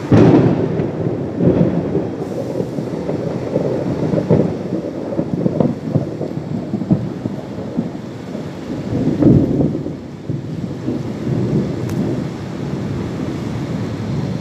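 Thunder: a sudden loud clap that rolls on as a long, low rumble, swelling again about nine seconds in.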